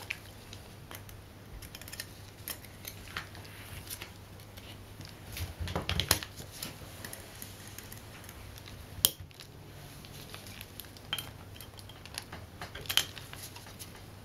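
Steel transmission gears and parts of a Honda CL160 transmission shaft clinking as they are handled and slid down onto the shaft: scattered light metallic clicks, with a cluster about six seconds in, a sharper click about nine seconds in and a few more near the end.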